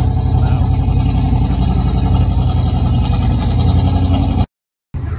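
Car engine idling steadily at close range with a fast, even exhaust pulse; it cuts off suddenly near the end.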